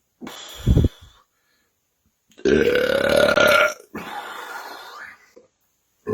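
A man belching after chugging carbonated soda: a short burp near the start, then one long loud burp about two and a half seconds in that rises in pitch and lasts over a second, trailing into a quieter stretch, and a short burp at the very end.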